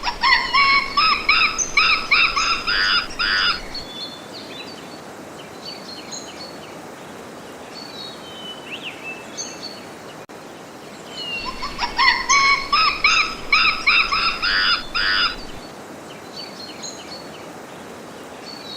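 A monkey calling in two bouts of rapid, repeated high calls, the first at the start and the second about halfway through. Fainter bird chirps and a steady background hiss run underneath.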